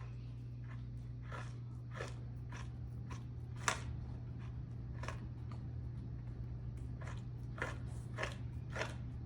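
Dog licking and gnawing wet food off a lick mat: short wet clicks and scrapes of tongue and teeth, roughly every half second, with one sharper click about three and a half seconds in. A steady low hum runs underneath.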